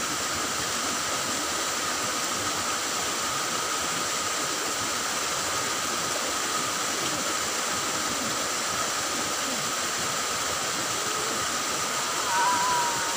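Steady rush of water flowing along a small ditch, even and unbroken throughout.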